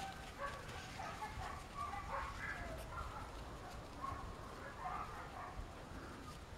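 Samoyed puppies whining and yipping faintly in short, wavering high squeaks that come on and off, over a low rumble.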